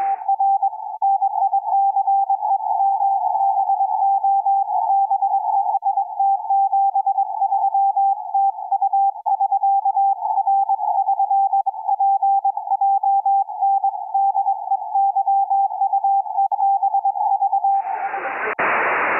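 Morse code (CW) signal received on a Kenwood TS-590 transceiver: a tone of about 800 Hz keyed rapidly on and off, heard through a narrow CW filter. It is picked up on a WellGood loop receive antenna, and the sound is clean and much nicer than on the main antenna.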